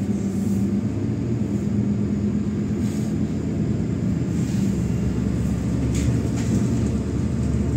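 MAZ-107 city bus under way, heard from inside the passenger cabin: a steady diesel engine drone with road rumble and a few faint clicks of the body.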